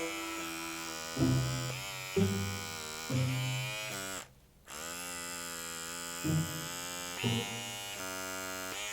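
Small electric blackhead vacuum's motor whining as it is worked over the skin, its pitch shifting repeatedly with short louder swells. It cuts out briefly about four seconds in, then starts again.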